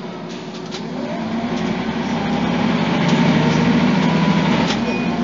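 Scania DC9 five-cylinder diesel of a Scania OmniCity bus pulling away and accelerating, with ZF automatic gearbox. The engine note rises and gets steadily louder over the first three seconds, then holds at a high level.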